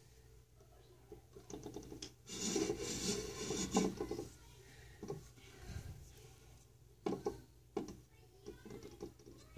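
Handling sounds of a small painted wooden box: rubbing and scratching loudest in a dense burst from about two to four seconds in, close to the microphone, then a few light sharp taps and scrapes as a paintbrush works on the box.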